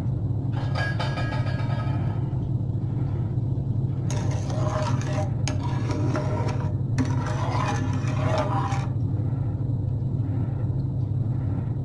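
Sugar syrup boiling in a pan on a gas stove, with a steady low rumble throughout and a spatula stirring and scraping the pan.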